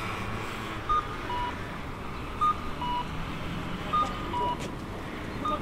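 Electronic two-note beeping: a short higher note followed by a slightly lower, longer one, repeating about every one and a half seconds, four times, over steady background noise.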